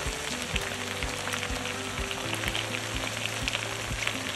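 Pork sizzling and crackling as it fries in a pan, with irregular pops over a steady hiss. Background music with sustained low notes plays along.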